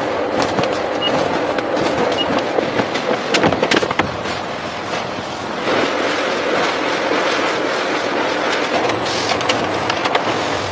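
Machinery clattering steadily, with frequent sharp clicks and knocks over a dense mechanical noise.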